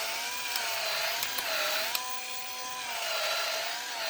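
Electric drill spinning a cleaning tool in the lifter bores of an LS engine block. Its motor whine dips and rises in pitch repeatedly, with a few faint ticks.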